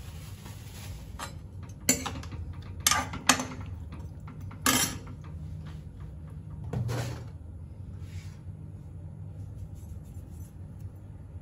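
Metal ladle knocking and scraping in a kadai while chole is stirred: four sharp clinks in the first five seconds, then a softer scrape about seven seconds in, over a steady low hum.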